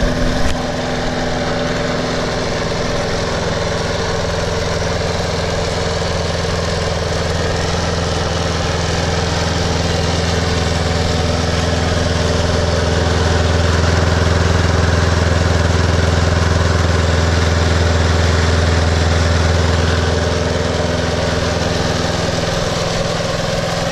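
Snapper Easy Speed walk-behind mower's 7.0 Intek overhead-valve Briggs & Stratton engine running steadily at a light throttle, warming up just after its first start of the year. The low hum swells a little about halfway through and eases off again.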